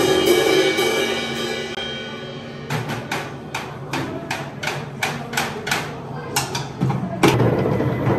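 A small child bashing a drum kit. A cymbal crash rings on for a couple of seconds, then uneven drum and cymbal hits follow at about three a second, with another loud crash near the end.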